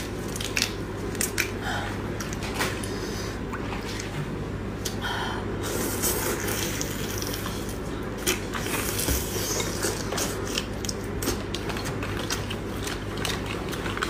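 Close-up eating sounds of raw marinated black tiger prawns: shells cracking and being pulled apart, with wet sucking and squelching, made up of many sharp irregular clicks. A steady low hum runs underneath.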